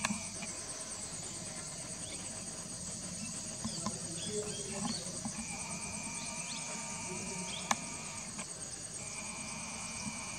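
Steady chorus of insects, a fast high pulsing trill, joined about halfway through by a second steady, high-pitched buzzing tone. A single sharp click comes about three-quarters of the way in.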